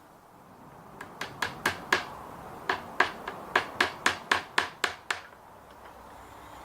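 Hammer tapping a tiny pin into the end of a hydraulic brake hose held in its clamping tool. There are about fifteen light, sharp taps: a run of five, a short pause, then a steadier run of about ten.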